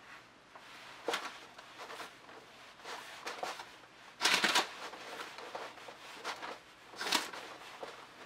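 Several short rustling and swishing strokes from gloved hands working a crumpled plastic bag and a wide paintbrush over a wet-coated canvas. The loudest comes about four seconds in, with another strong one about seven seconds in.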